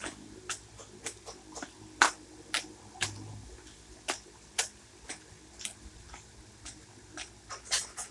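Feet stepping up and down on a low concrete step in a steady rhythm, about two footfalls a second, some landing louder than others.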